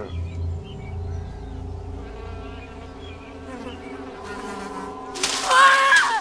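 Steady, insect-like buzzing drone over a low rumble, from a film soundtrack. About five seconds in, a loud cry rises and falls for about a second.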